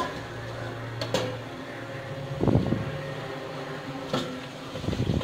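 Steel pan lid being handled on a pan on the stove: a few light knocks and clinks, the loudest about two and a half seconds in and a quick cluster near the end as the lid is taken off, over a steady low hum.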